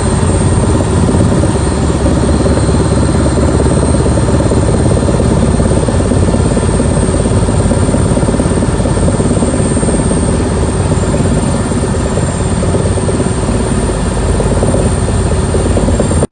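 Rescue helicopter's rotor and engine running, a loud, steady noise that cuts off suddenly at the end.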